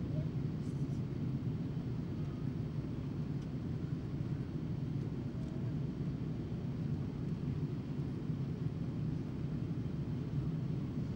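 Steady cabin noise of a jet airliner in cruise flight, heard from inside the cabin: an even, low rumble of engines and airflow that does not change.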